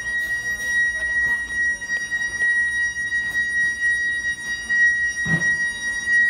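Store intercom screeching: a steady, unbroken high-pitched tone from the overhead paging speakers, caused by a store phone dialled into the intercom and left on speaker.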